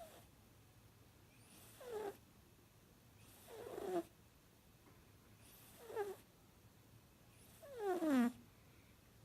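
Chihuahua–dachshund mix puppy snoring in its sleep: four short whistling snores about two seconds apart, each falling in pitch, the last one near the end the longest and loudest.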